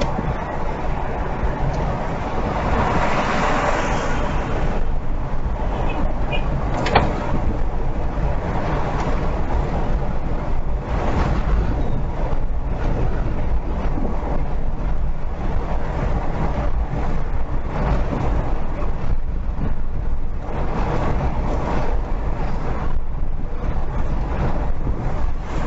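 Steady road and tyre noise with engine rumble from a car driving at highway speed, heard from inside the cabin. A single sharp knock comes about seven seconds in.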